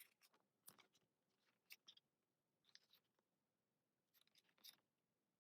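Very faint paper and plastic handling while an album is unboxed: a series of short, separate rustles and scrapes, roughly one a second.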